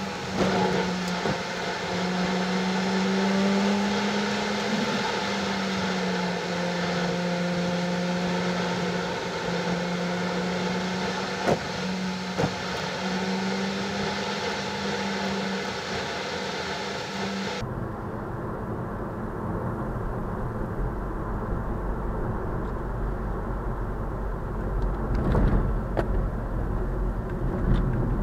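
Interior noise of a car cruising: a steady engine drone holding a nearly constant pitch over road and wind noise, with two brief knocks around the middle. About two-thirds of the way through, the sound changes abruptly to a duller, deeper rumble of road noise without the drone.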